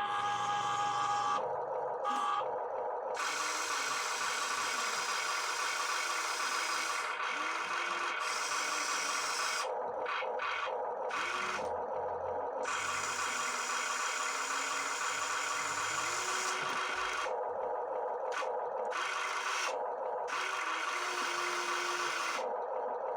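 Small electric motors and plastic gearing of a toy RC backhoe excavator whirring in repeated stop-start runs, each run cutting in and out abruptly.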